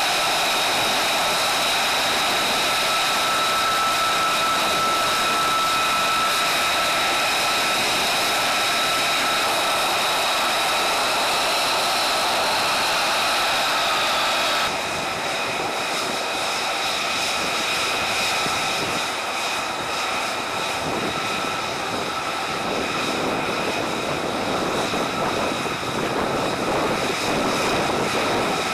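F-35A Lightning II fighters running on the ground: a steady jet roar with a high whine held on several tones. About halfway through the sound steps down abruptly to a slightly quieter, rougher roar.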